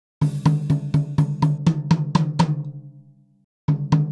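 Recorded drum kit playing back through a transient-designer plugin: an even run of sharp kick, snare and hi-hat hits about four a second over a steady low bass tone. The hits ring out, the low tone cuts off suddenly about three and a half seconds in, and playback starts again shortly after.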